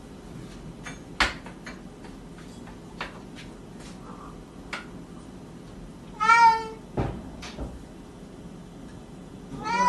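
A domestic cat meowing: one meow about six seconds in and another starting near the end, with scattered sharp knocks and taps, the loudest about a second in.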